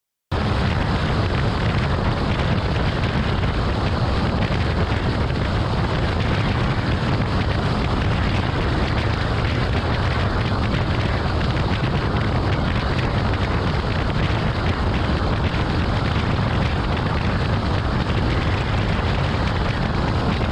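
Severe thunderstorm wind and heavy rain: a loud, steady rushing noise, heaviest in the deep low end, with wind buffeting the microphone. It starts abruptly and cuts off sharply.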